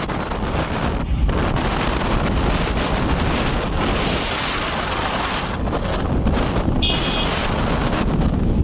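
Wind buffeting the microphone of a moving motorcycle, over steady engine and road noise. A short high beep sounds about seven seconds in.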